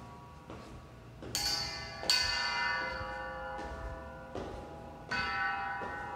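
Music of slow, bell-like struck tones: about six strikes, each ringing on and slowly fading, the loudest about two seconds in.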